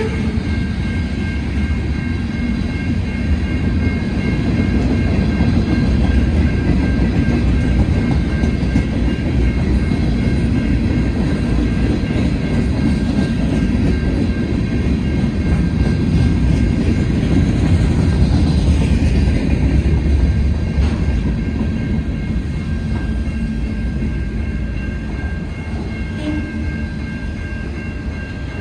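Freight train cars, covered hoppers then autoracks, rolling past on steel wheels: a steady low rumble and clatter on the rails, with a steady high ringing tone over it.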